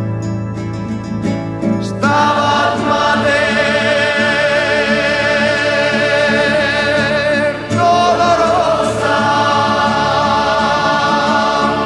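Religious song: acoustic guitar playing alone, then a choir comes in about two seconds in, singing long held notes with vibrato over the guitar.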